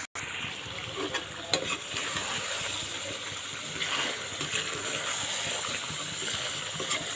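Chicken masala gravy sizzling and bubbling in a metal kadai while a steel ladle stirs it, with a few clicks and scrapes of the ladle against the pan. The sound cuts out for a moment right at the start.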